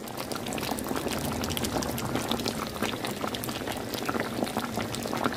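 Chicken and potato curry simmering in the pan, the thick gravy bubbling with a steady, dense patter of small pops.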